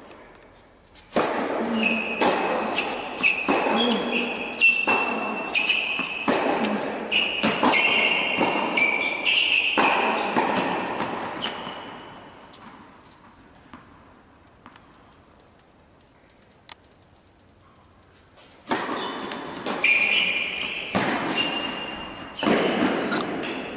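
Tennis ball struck by rackets and bouncing on an indoor hard court, about one hit or bounce a second, each echoing in the large hall, with short high squeaks over them. The hits stop for several seconds midway, then a second run of hits comes near the end.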